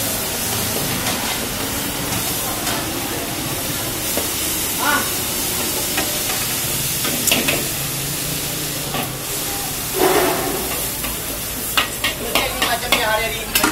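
Cabbage and noodles sizzling in a large wok, stirred with a long metal ladle that scrapes and clanks against the wok. A quick run of clanks comes near the end.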